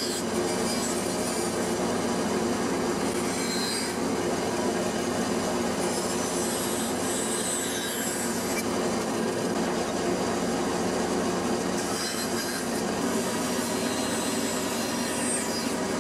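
Bandsaw running steadily as its blade cuts a row of notches into a plywood panel.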